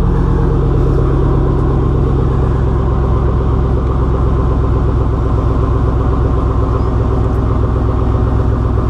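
2004 Chevrolet Silverado's 5.3-litre V8 idling steadily through a 3-inch single straight-pipe exhaust with the muffler deleted (stock manifolds and cats), a deep, even womp-womp pulse like a Flowmaster.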